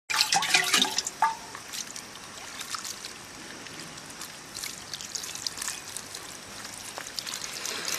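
Wet squelching and splashing of hands rubbing and washing a raw goat liver, with liquid trickling over it. A brief louder sound comes in the first second and a half.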